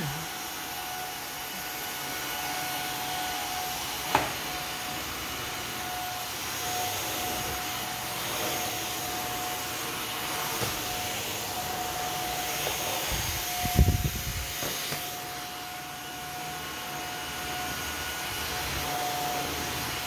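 Cordless stick vacuum cleaner running steadily with a constant whine as its floor head is pushed over the floor. A sharp knock comes about four seconds in, and a short low thud near fourteen seconds is the loudest moment.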